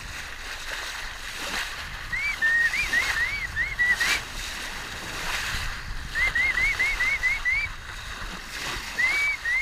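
Three bursts of quick chirping whistles, each a run of short rising-and-falling notes at several a second, over the steady wash of water along a sailboat's hull. A single sharp knock about four seconds in.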